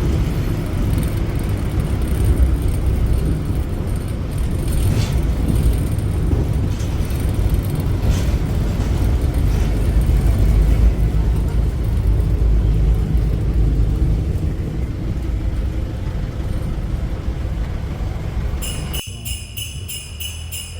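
Steady low rumble of a moving road vehicle. About nineteen seconds in it cuts off abruptly to a short jingle-bell music sting.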